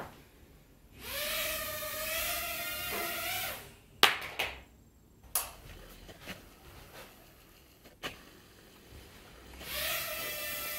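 Eachine H8S mini quadcopter's tiny coreless motors and propellers whining as it throttles up for a couple of seconds, then cutting out; sharp knocks and clicks follow, and about ten seconds in the motors spin up again with the whine rising slightly.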